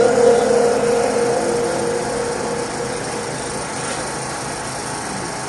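The tail of a Quran reciter's long, melismatic held note, fading out over the first second or two. It leaves a steady background hiss.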